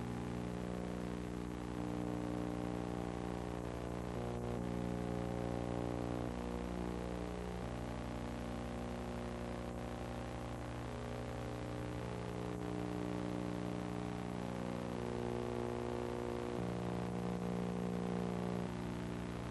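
Steady electrical hum with a stack of evenly spaced overtones, unchanging in pitch, with a few faint ticks; no sound from the filmed scene itself is heard.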